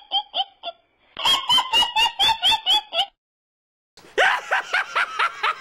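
A high-pitched witch's cackle, a rapid run of about five 'ha's a second, cuts off about three seconds in. After a second of silence, Chucky's evil laugh starts: a falling swoop, then a fast chuckle.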